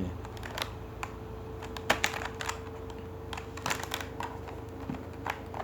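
Irregular light clicks and taps, as of the Irwin Vise-Grip 5WR multitool being handled, with a faint steady hum underneath.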